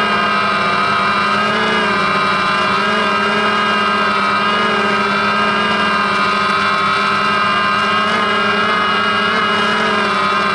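DJI Phantom quadcopter's motors and propellers whining steadily in flight, several high tones that waver slightly as it moves, picked up close by the camera mounted on the drone.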